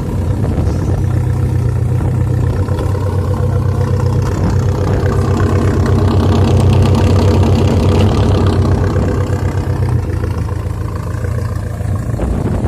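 1974 Dodge Dart's 318 V8 engine running with a deep, burbling exhaust rumble ("gló gló gló"), growing louder and rougher through the middle before easing back.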